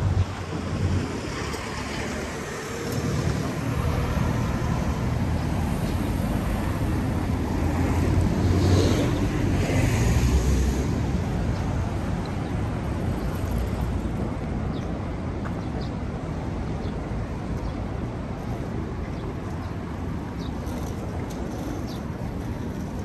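Road traffic: cars passing with a steady rush of tyres and engines, swelling as a vehicle goes by close about nine seconds in.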